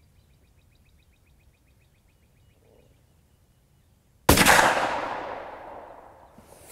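A single shot from a suppressed .308 rifle about four seconds in: a sharp crack followed by a long tail fading over about two seconds. Before it, a bird gives a faint rapid trill.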